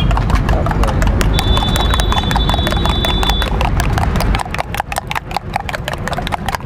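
Eggs being beaten with a metal spoon in a steel tumbler: quick, rhythmic clinking of the spoon against the metal. A low rumble underneath drops away about four seconds in.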